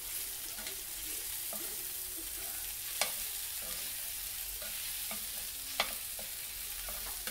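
Thin slices of lamb sizzling in oil on a hot grill as they are stirred around: a steady sizzle with scattered sharp clicks and scrapes of the utensil, the loudest about three seconds in and again just before six seconds.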